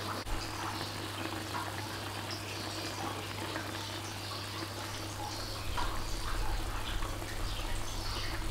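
Pork ribs simmering in a pan, the last of the cooking water bubbling as it boils down, over a steady low hum.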